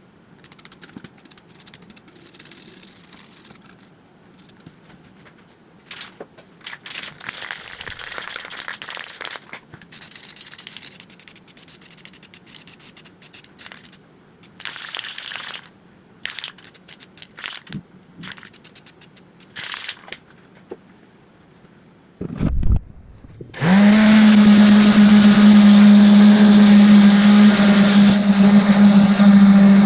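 Irregular short hissing bursts with quiet gaps, then a low thump and a motor starting up. The motor spins up quickly and runs loudly and steadily at a high pitch.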